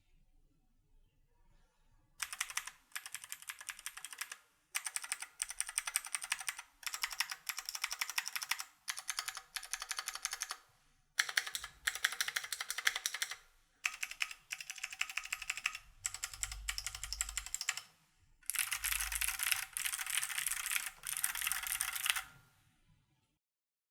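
Keychron Q1 prototype mechanical keyboard with factory pre-lubed, clicky Gateron G Phantom Blue switches being typed on fast, in runs of rapid keystrokes broken by short pauses. The typing starts about two seconds in and stops shortly before the end.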